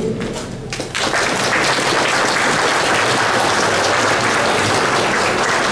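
Audience applauding: a few scattered claps at first, filling out into steady applause about a second in.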